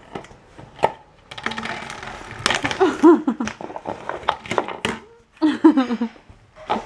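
Puppy shaking and biting an empty plastic bottle: the plastic crinkles and crackles in quick snaps, with sharp knocks as it hits the bed and the tile floor.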